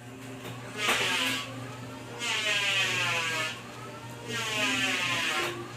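Printer running a print job: three passes of the print head, each a whirring sweep lasting about a second, over a steady low hum.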